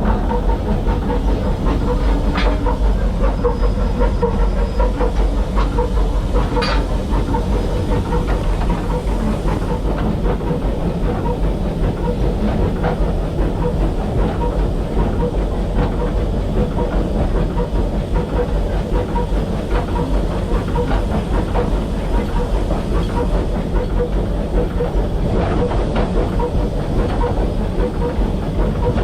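Steam locomotive running, a steady deep rumble with a hiss of steam, and two brief sharp sounds in the first seven seconds.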